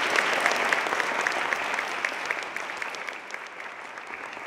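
Audience applauding, the clapping gradually fading.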